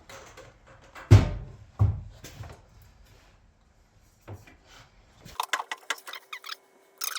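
Heavy metal knocks of an electric lathe motor being lifted and set into place on its mount, two loud ones about a second apart, then lighter knocks. Near the end, a quick run of sharp clicks and rattles.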